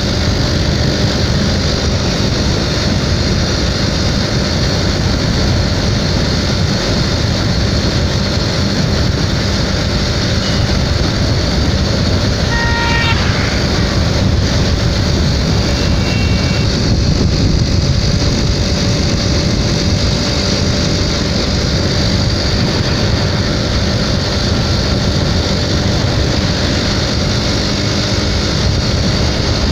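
Steady rush of wind and road noise from a motorcycle being ridden along a road, with its engine running underneath. Halfway through comes a short vehicle-horn beep, and a few seconds later a second, fainter one.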